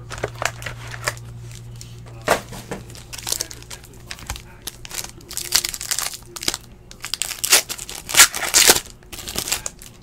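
Foil trading-card pack being crinkled and torn open by hand: a run of sharp crackling that grows louder and denser in the second half. A low steady hum sits underneath for the first few seconds.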